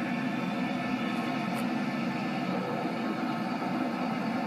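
Steady low rush of wind from a tornado passing close by, played back through a television's speaker.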